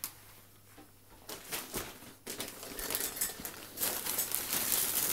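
Christmas wrapping paper crinkling and rustling as a wrapped present is handled, faint at first and growing louder and denser from about two seconds in.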